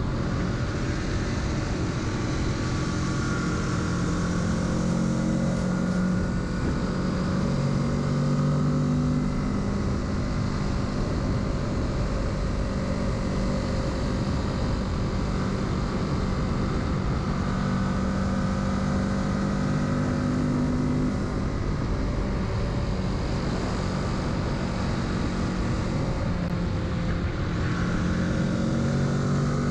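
Kawasaki Z650's parallel-twin engine running under way on a motorcycle, its note shifting up and down a few times with throttle and gear changes, over a steady rush of wind and road noise.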